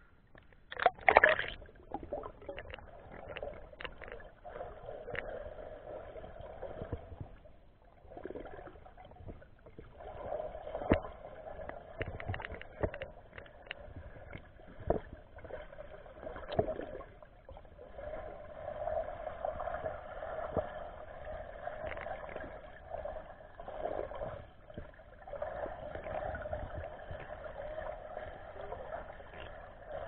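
Muffled underwater sound picked up by an action camera in its waterproof housing: swirling water and gurgling, with scattered sharp clicks and swells as the diver swims. A loud splashing burst about a second in as the camera goes under.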